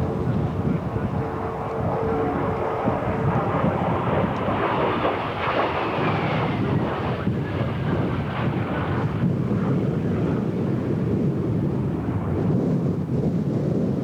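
Light aircraft engine running as the plane flies past, with a thin whine that falls in pitch about five seconds in. Wind noise on the microphone.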